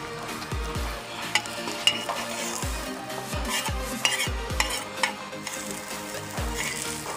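Egg sizzling in oil on a black griddle pan, with a steel spatula scraping across the pan and knocking against it again and again.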